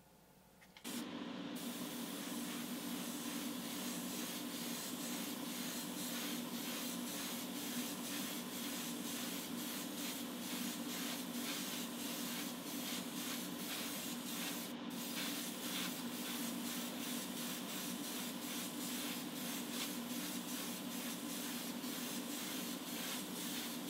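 Airbrush spraying an orange-tinted clear coat onto a small diecast car body: a steady hiss of air, with a steady low hum beneath, both starting suddenly about a second in. The hiss cuts out briefly twice, near the start and about halfway through.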